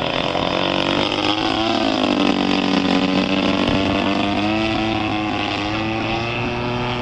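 Gasoline engine of a radio-controlled Pilatus model airplane running steadily in flight. Its note dips in pitch about two seconds in, then slowly rises again as the plane flies past.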